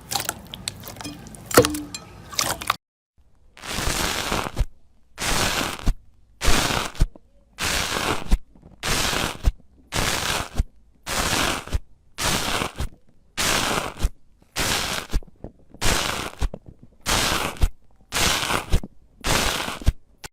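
A crunchy material being scraped in slow, even strokes, about fourteen of them, one a little over every second, each with a gritty rasp and many ending in a sharp tick. The strokes follow a couple of seconds of scattered crackling clicks.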